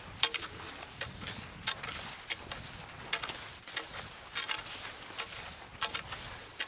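Skis scraping over man-made snow: short, sharp scrapes come irregularly, about one or two a second, over a steady hiss.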